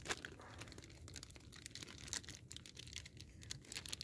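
Plastic sausage wrapper crinkling and tearing as it is pulled open by hand: a faint, irregular run of sharp little crackles.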